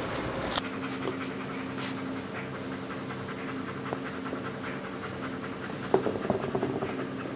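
Dog panting while a puppy plays with an orange rubber toy on a wooden floor, with a cluster of sharp knocks and clicks from the toy and paws on the floor about six seconds in. A steady low hum runs underneath.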